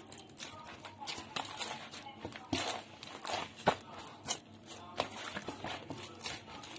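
Hands kneading soft, wet maida (refined wheat flour) paratha dough in a plastic bowl: irregular sticky squishes and smacks as the dough is pressed and folded while water is worked into it.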